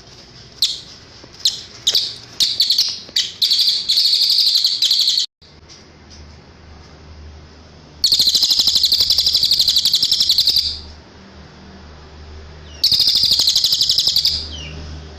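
Cililin bird singing: a run of short, sharp, high chirps that quicken into a rapid trill, then two long, fast, evenly pulsed high trills of two to three seconds each.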